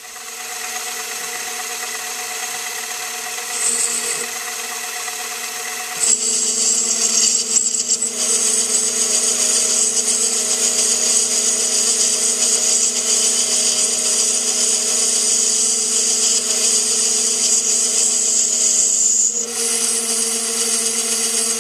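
Small benchtop metal lathe starting up and running with a steady motor whine. About six seconds in, the tool begins cutting the aluminium bar stock, adding a louder, higher-pitched cutting noise that stops shortly before the end while the lathe keeps running.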